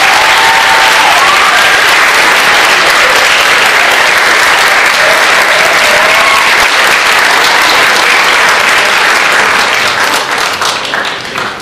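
Audience applauding loudly, dying away near the end.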